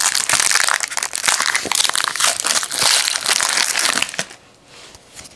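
Plastic foil wrapper of an NBA Hoops trading-card pack crinkling and crumpling as the pack is opened, stopping about four seconds in; a few light clicks of cards being handled follow.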